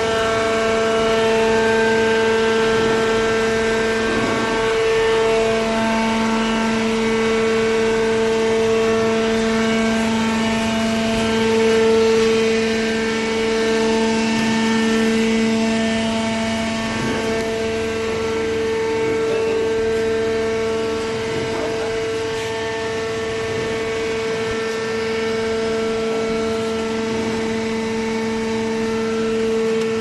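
Hydraulic baler's electric motor and hydraulic pump running, a steady loud hum with a whine above it that wavers slightly.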